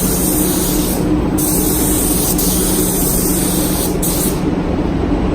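Spray gun spraying high-build primer in passes, hissing in three stretches: the trigger is let off briefly about a second in and again about four seconds in. A steady low hum runs underneath.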